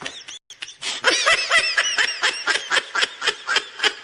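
Meme sound effect of someone laughing in quick, rhythmic bursts, about five a second. There is a brief break about half a second in.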